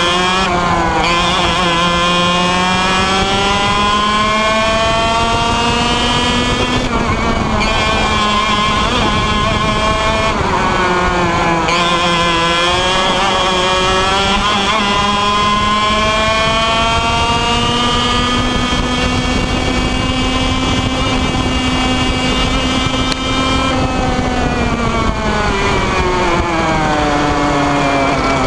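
Two-stroke kart engine running loudly, its pitch rising and falling slowly over several seconds.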